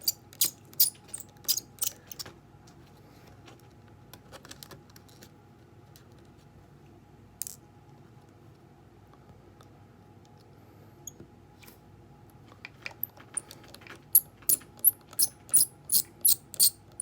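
Rhythmic scratching in the background: short, sharp strokes about three a second, which stop after about two seconds and start again a few seconds before the end.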